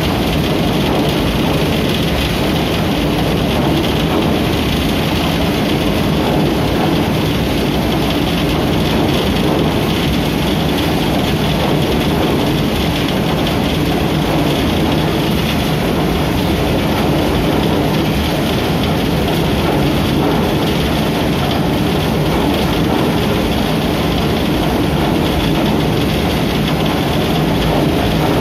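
Shaftless threshing machine running at a steady speed, with straw tumbling through its spiral wire drum: a loud, constant mechanical din with a low hum underneath.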